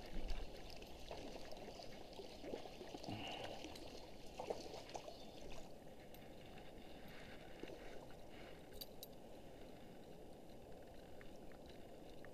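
A hooked trout splashing at the surface of a stream as it is reeled in, with the louder splashes about half a second in and again near four and a half seconds, over faint running water.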